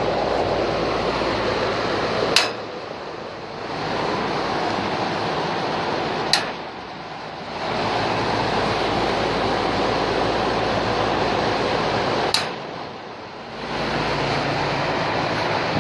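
A steady rushing noise, broken three times by a sharp click. After each click the noise drops for about a second, then comes back.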